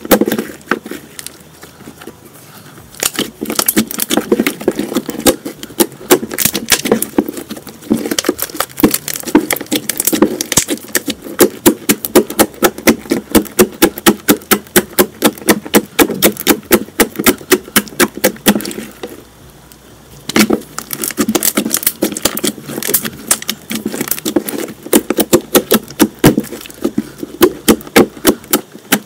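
A large lump of slime squeezed and poked with the fingers, giving rapid wet clicking pops as air pockets burst, several a second, with a short pause about two-thirds through.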